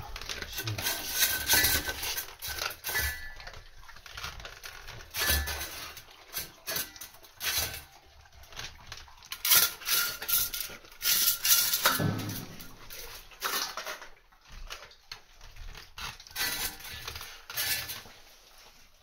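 Bull terriers eating raw chicken feet from stainless-steel bowls. The metal bowls clink and scrape irregularly as the dogs nose and lick them, with chewing in between.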